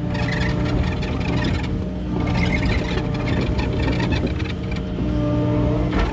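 Kubota KX080 excavator's diesel engine running steadily at working revs, with irregular rattling and clatter from the machine over the engine drone.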